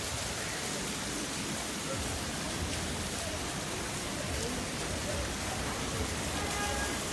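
Steady hiss of splashing water on wet stone paving.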